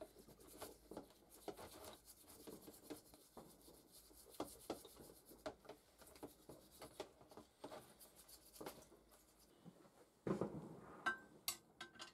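Small brass wire brush scrubbing steel pliers in a plastic tub: quick, irregular, faint scratchy strokes. Near the end a louder rustle, then a few sharp clinks of the metal pliers set down in a glass dish.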